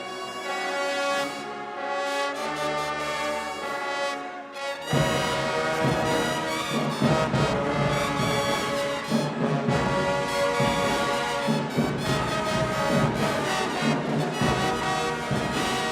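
Marching band brass section playing held chords, then about five seconds in the full band with drums comes in louder and keeps playing.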